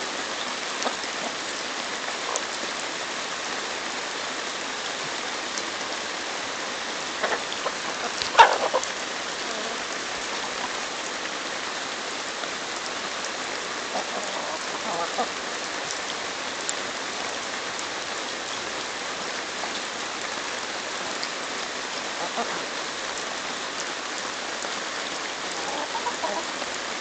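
Chickens pecking kernels off a hand-held corn cob, heard as scattered clicks over a steady, even patter like light rain. One brief louder call comes about eight seconds in.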